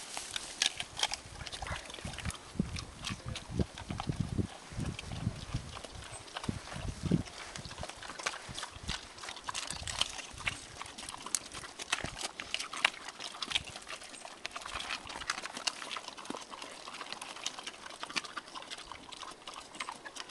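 Pigs crunching and chomping windfall apples: a steady, irregular run of sharp crunches and wet chewing, heavier and deeper in the first several seconds.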